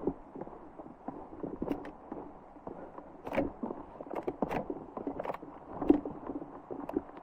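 Footsteps of a person walking on a mountain trail: irregular scuffs and steps about one or two a second.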